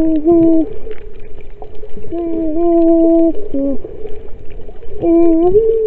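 A woman singing wordless long held notes into the water while snorkeling, her voice muffled by the water, with short pitch slides between notes and the last note dropping away near the end. Steady water noise and gurgling run underneath.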